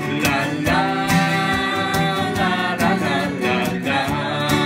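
A man and a woman singing a wordless "la la la" refrain together over a strummed acoustic guitar.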